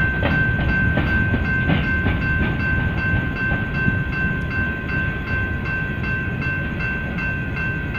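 Loaded coal train cars rolling past at close range: a continuous heavy rumble with wheel clatter over the rail joints. Over it, the grade-crossing bell rings on at an even pace of about two to three strikes a second.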